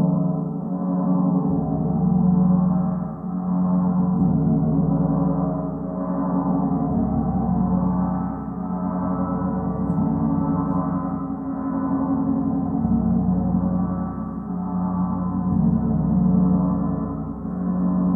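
A Rotogong, a gong spun on its mount, ringing with a low, sustained tone. Its sound swells and fades in a slow rhythm, about every two seconds, as the spinning gong turns.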